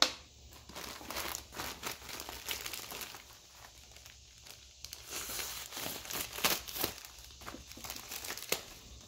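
A mail package being torn open by hand: its packaging crinkles and rustles in irregular crackles, with a few sharper snaps.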